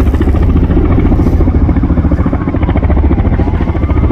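Emergency helicopter's rotor beating in a rapid, loud chop as it comes in to land close by. A siren's wail rises faintly near the end.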